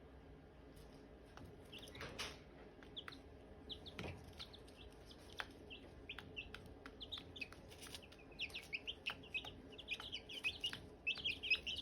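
Silkie chicks peeping: short, high chirps, scattered at first and growing busier and louder about two-thirds of the way through. A couple of brief soft noises come in the first few seconds.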